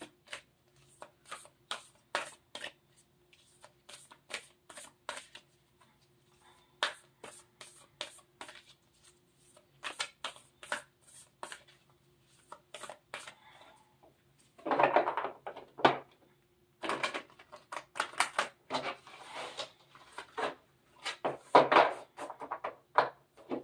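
A deck of large oracle cards shuffled by hand, hand over hand, making a run of soft slaps and clicks as the packets drop onto each other, with busier stretches in the second half.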